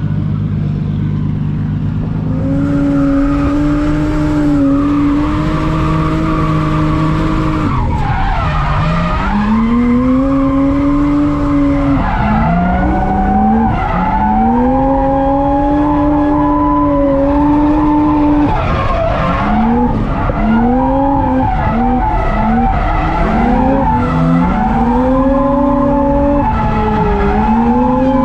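Turbocharged drift car's engine at high revs while drifting, over tyre noise. After a steady lower note in the first couple of seconds the revs jump up and hold for several seconds, then dip and climb again and again as the throttle is worked through the slides.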